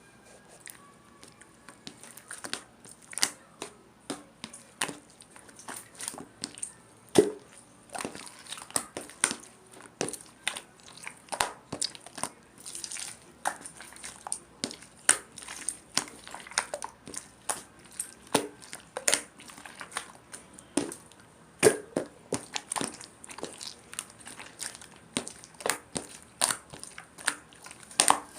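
Irregular crinkling and crackling handling noises, with sharp clicks several times a second and some louder snaps.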